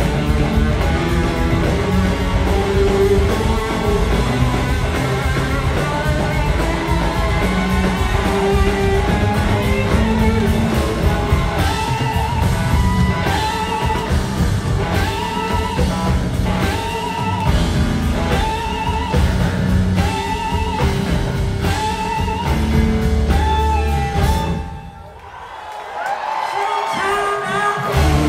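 Live blues-rock band playing: electric guitar, bass and drums with singing, taped from the audience. About 25 seconds in the band breaks off briefly, then comes back in loud.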